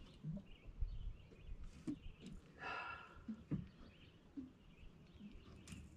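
Faint scattered knocks and handling noises in a small boat, over a low rumble, with one brief higher-pitched sound about two and a half seconds in.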